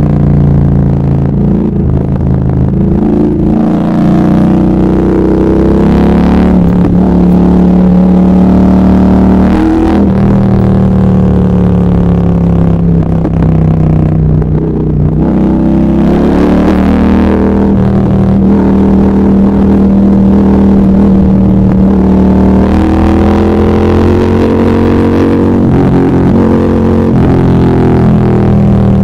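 Triumph Speed Twin 1200's parallel-twin engine running under load while riding, its pitch rising and falling several times with the throttle.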